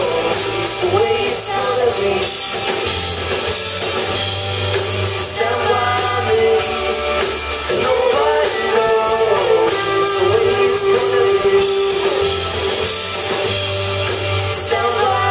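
Live rock band playing a song, with electric and acoustic guitars, bass and drums, and a voice singing over it.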